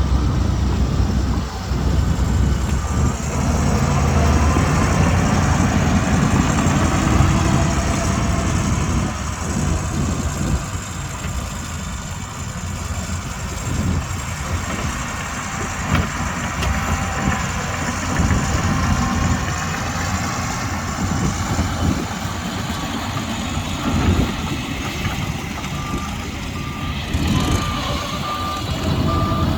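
Shantui DH17C2 bulldozer's diesel engine running with a deep, steady rumble, louder for the first ten seconds or so. A reversing alarm beeps in a steady row near the end.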